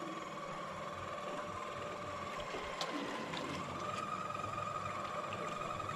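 Electric deep-drop fishing reel's motor whining steadily as it winds against a fish, its pitch rising a little about two-thirds of the way through. A few light clicks near the middle.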